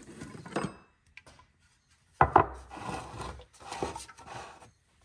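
Handling noise close to the microphone: a short scrape at the start, a sharp knock about two seconds in, then rubbing and scraping for a couple of seconds.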